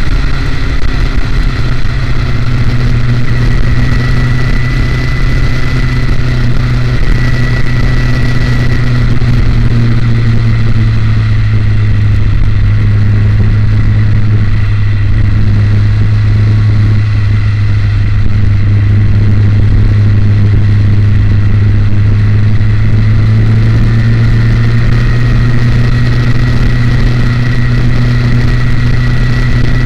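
Motorcycle engine running at a steady cruising speed under load, with wind and road noise; its low drone sags a little in pitch midway and climbs again near the end.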